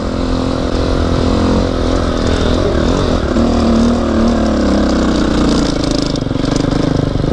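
A KTM 250 XC-F dirt bike's single-cylinder four-stroke engine pulls under throttle as it climbs a steep dirt hill, the revs shifting up and down through the middle. A steady low rumble runs underneath.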